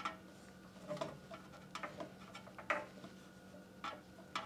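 Light clicks and taps, about six at uneven intervals, as a rubber hose is pulled and pressed into place by hand against the plastic air cleaner housing of a small engine.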